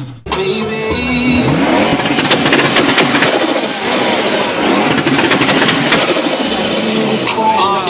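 Turbocharged car engine revving, with two bursts of hissing, chattering turbo flutter as the throttle is let off.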